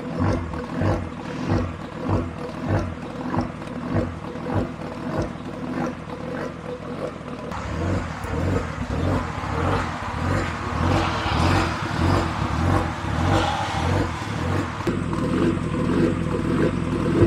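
Nissan RB25DET turbo straight-six idling on Haltech Elite rotational idle ("ghost cam") with injection cut and VCT on at idle. It gives a lumpy, chopping exhaust note with a regular lump about every two-thirds of a second, like a set of aggressive cams.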